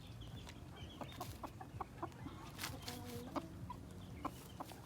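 Gamefowl clucking faintly in short notes, among scattered small clicks and taps.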